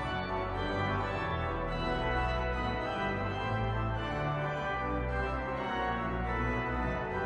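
Pipe organ playing sustained chords over long held bass notes.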